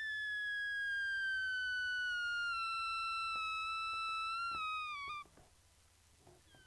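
A rubber balloon deflating, its air squealing out through the stretched neck in one long, high whine that slowly falls in pitch. The whine wavers with a few small sputters and cuts off about five seconds in.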